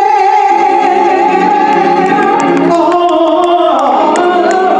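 Live gospel music: a man sings a long held note, then sliding runs, into a microphone over sustained organ chords, heard through the hall's sound system.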